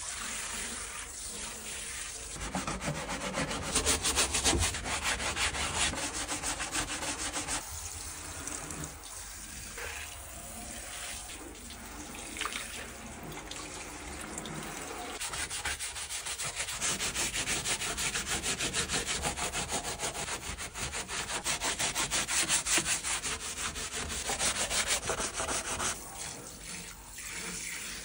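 Hose-fed bristle wash brush scrubbing foam-covered bare sheet metal of a stripped car body, a steady rubbing with water spraying from the brush head.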